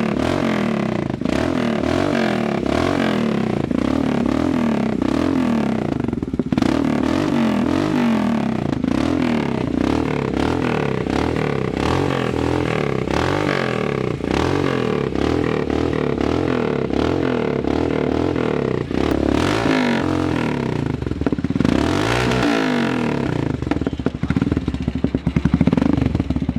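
Royal Enfield Himalayan's single-cylinder engine running through an aftermarket off-road megaphone silencer, idling with an even beat. In the second half the revs rise and fall a few times.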